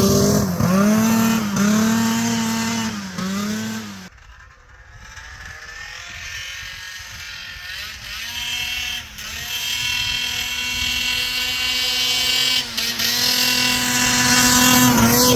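Vintage Arctic Cat Pantera snowmobile's two-stroke engine being revved in a few short bursts, then pulling away and climbing to a steady high pitch. The pitch falls near the end.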